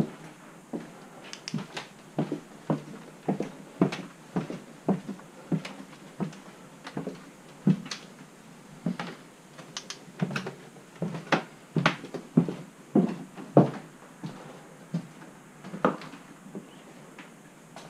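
Footsteps thudding on the floor while walking through small rooms, about two steps a second.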